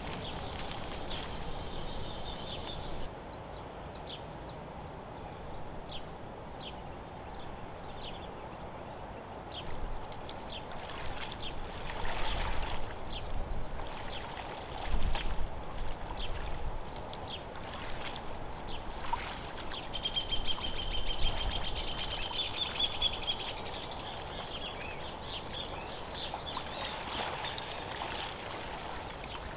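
Pond water splashing, sloshing and dripping as a wet cloth is dunked and wrung out by hand, with the louder splashes coming about halfway through. High bird chirps trill briefly over a steady outdoor background.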